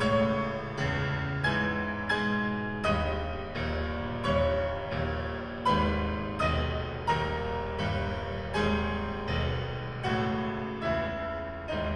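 Solo classical piano recording played back over a car's custom audio system and heard inside the cabin: a steady run of struck chords with deep bass notes, about three every two seconds.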